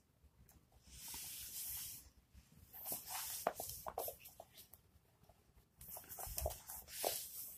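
Domestic cat hissing in about three bursts, each about a second long, with short squeaks and clicks between, while it play-fights with a hand.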